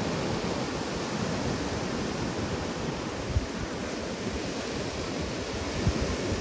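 Surf breaking and washing up a sandy beach, a steady rushing hiss. Wind on the microphone adds a couple of brief low thumps.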